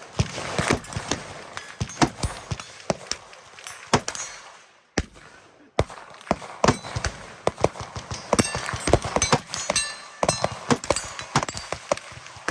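Rifle gunfire: many sharp shots in quick, irregular succession, with a short break about five seconds in.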